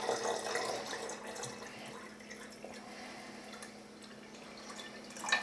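Liquid trickling and dripping from a plastic measuring jug into a clear acrylic dosing container, fading over the first couple of seconds. A faint steady hum sits beneath it, and there is a short knock near the end.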